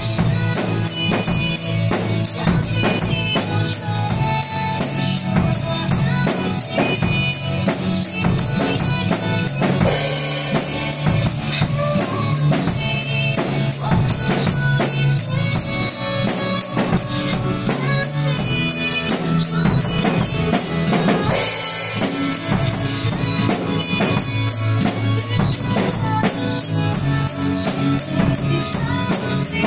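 Drum kit played along with a song: a steady beat of kick and snare strokes with cymbals under pitched melodic accompaniment, with cymbal crashes about ten seconds in and again after about twenty-one seconds.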